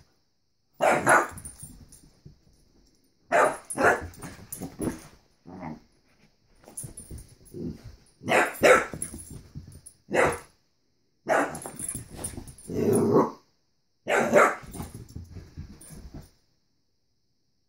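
Dog barking in repeated bursts of a few barks each, with short pauses between.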